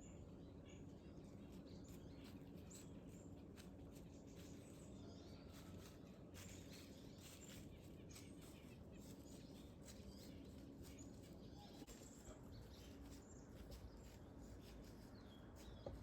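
Quiet outdoor ambience: faint small-bird chirps and scattered light ticks over a low, steady background hum.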